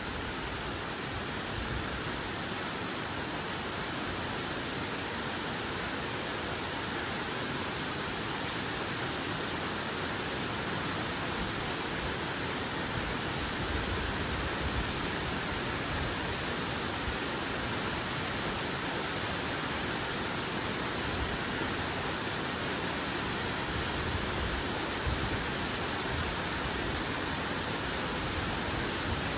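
Nachi Falls, a tall single-drop waterfall, pouring: a steady, unbroken rush of falling water.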